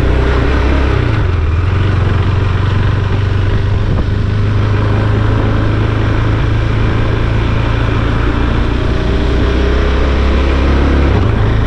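KTM 390 Duke's single-cylinder engine running at low revs, a steady low note, as the motorcycle rides slowly and gathers speed gently.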